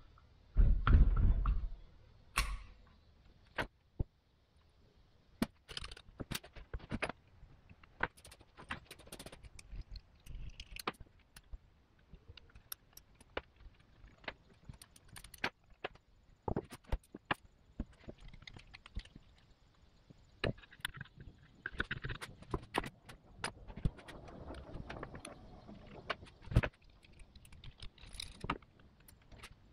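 Metal parts and hand tools clinking and knocking on the cast-iron case of a 1960s riding-mower gearbox being taken apart by hand. There is a heavy low thud about a second in, then scattered sharp clicks and taps.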